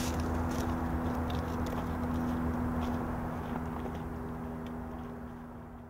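Footsteps on dry fallen leaves and forest litter, with scattered small crunches that grow fainter as the walkers move away, over a steady low hum.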